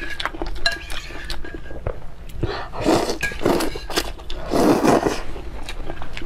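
A person eating noisily: two long slurps about three and five seconds in, with smaller mouth smacks and clicks between them.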